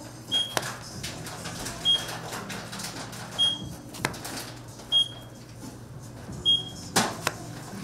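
Kitchen knife slicing the tops off strawberries, with a few sharp taps of the blade on a plastic cutting board, over a steady low hum. A short electronic beep from an appliance repeats about every one and a half seconds.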